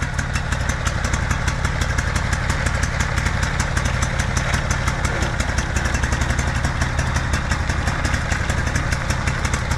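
Lawnmower's small engine running steadily, with a fast, even firing beat.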